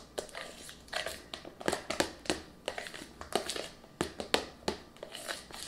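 A small spatula stirring fresh peaches into a thick creamy filling in a plastic mixing bowl: a string of irregular scrapes and taps against the bowl, a few a second.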